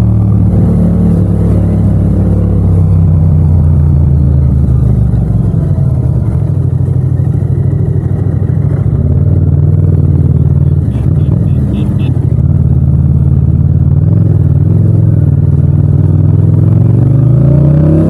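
Yamaha MT-07 (FZ-07) 689 cc parallel-twin engine running at low revs while the bike rolls through traffic. The note is mostly steady and climbs near the end as the rider accelerates. A quick run of about five short high beeps comes about eleven seconds in.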